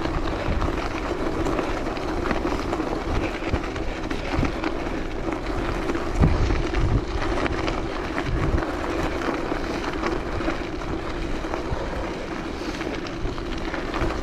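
Bicycle tyres rolling over a gravel road, with wind rushing over the microphone as it rides. A steady rumble with scattered low thumps, the strongest about six seconds in.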